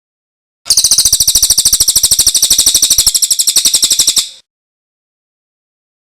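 A songbird's fast trill of rapidly repeated, sharp, high chirps, lasting about three and a half seconds and then breaking off suddenly.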